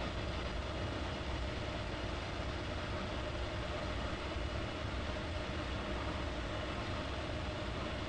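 A steady low rumble with an even hiss above it, unchanging and without distinct events.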